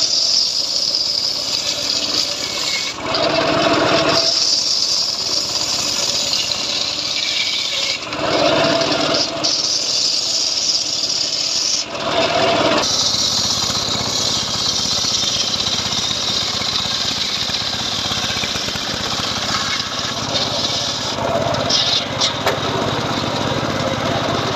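Homemade circular saw rig running steadily, its blade cutting johar wood. The cutting noise swells three times, at about three, eight and twelve seconds in.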